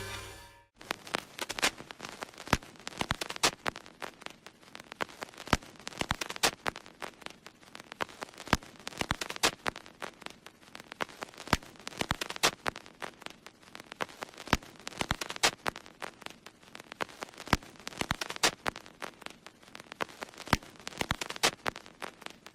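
Irregular dry crackling: sharp clicks and snaps several times a second, uneven in loudness, over a faint hiss.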